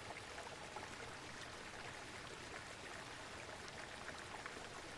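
Steady sound of falling water from a waterfall, an even wash of noise without breaks.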